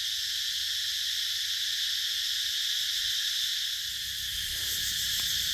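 Steady high-pitched insect chorus, a dense shrill drone from many insects calling at once without a break.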